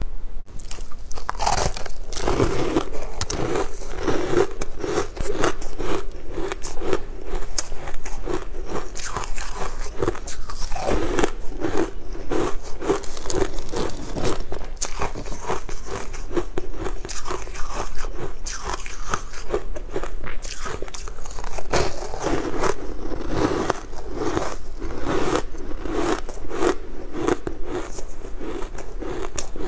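Crunchy biting and chewing of breadcrumb-coated food, a dense run of crisp crackling crunches throughout.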